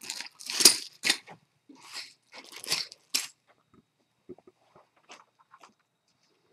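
Plastic bags of 3D-printed parts being handled, crinkling and rustling in a series of crunches over the first three seconds, then a few faint clicks.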